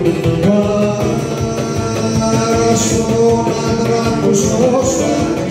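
Live Cretan folk music: violin over laouto and guitar accompaniment, with a man's singing voice in places.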